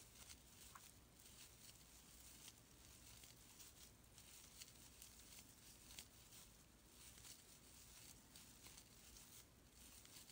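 Very faint rustling and light irregular ticks of a crochet hook working glittery acrylic scrubby yarn, pulling it through double crochet stitches.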